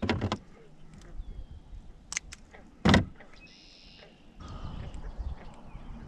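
Several sharp knocks and clicks, the loudest about three seconds in, followed by brief high chirping and then a low rumbling noise.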